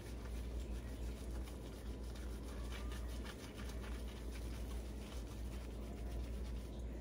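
Terry towel rubbing a wet Himalayan cat's fur dry: soft, irregular scrubbing strokes over a steady low hum.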